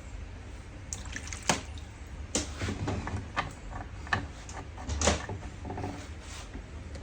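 Irregular clicks and knocks, about six spread over several seconds, from parts and tools being handled during a diesel fuel pump repair, over a low steady hum.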